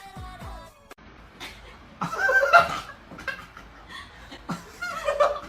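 Background music that cuts off about a second in, then a person laughing, loudest around the middle, with more short laughs and voice sounds near the end.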